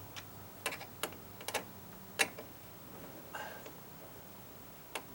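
A few light clicks and taps at irregular intervals, the loudest a little over two seconds in, like small hard parts being handled.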